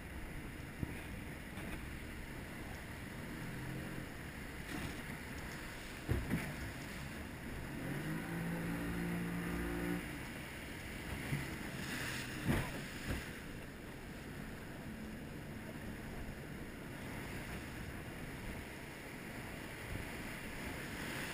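Small open fibreglass boat pushing out through breaking surf: a steady rush of wind and water, with a few sharp knocks of waves striking the hull, loudest about 6 and 12 seconds in.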